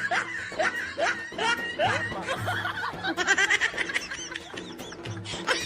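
Snickering laughter, a run of short falling "hee-hee" notes giving way to higher, chirpier giggles, over background music with a low repeating bass beat.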